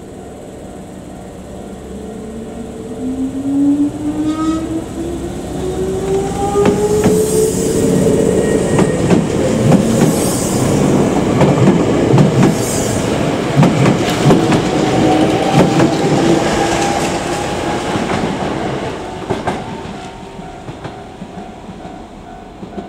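Nose Electric Railway 5100 series electric train pulling away and passing close by. Its motor whine rises steadily in pitch as it gathers speed, with clickety-clack of the wheels over rail joints loudest as the cars go past, then fading away.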